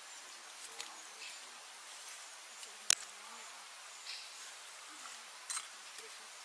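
Quiet outdoor background with a faint murmur of distant voices, broken by one sharp click about three seconds in and a softer double click near five and a half seconds.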